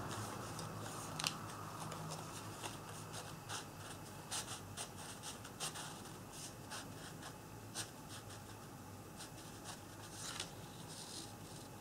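Paper changing-picture card being handled, its pull tab slid back and forth so the slotted picture panels move. It makes faint rustling and scattered light paper ticks.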